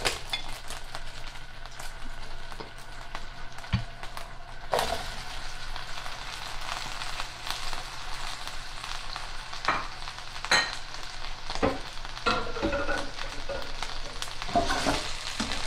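Sliced onions and bell peppers sizzling in hot oil and chicken drippings in a skillet at medium-high heat: a steady frying hiss with a few sharp clicks and pops scattered through it.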